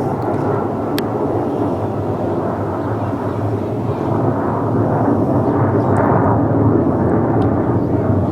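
Jet noise from a MiG fighter overhead during an air raid: a loud, steady rushing engine sound that grows a little louder past the middle.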